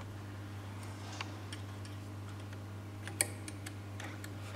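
Light, scattered metallic clicks and ticks of screws being fitted by hand into an induction motor's casing, the sharpest about three seconds in, over a steady low hum.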